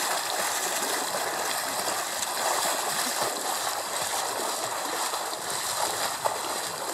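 Continuous splashing and churning of river water as three swimmers in wetsuits swim through it.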